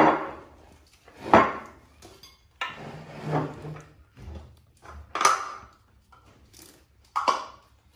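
A series of separate knocks and clatters of plastic lids and dishware on a tabletop, about one every second.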